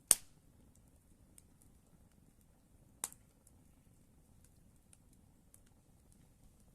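Campfire burning, with faint crackling throughout and two sharp pops from the burning wood: a loud one right at the start and a smaller one about three seconds later.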